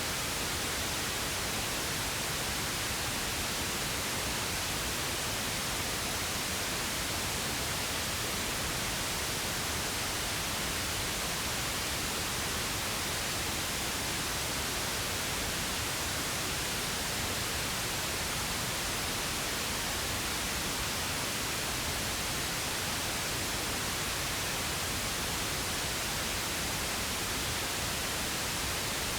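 Steady synthetic pink noise: an even, unchanging hiss.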